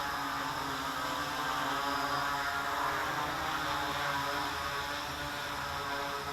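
Electric motors and propellers of a 3D-printed DJI Inspire 1 quadcopter running, a steady whirring buzz made of several pitches that waver slightly.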